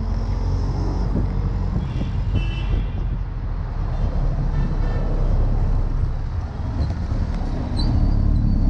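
Auto-rickshaw engine running as it drives through city traffic, heard from inside its open-sided passenger compartment; the engine gets louder again near the end.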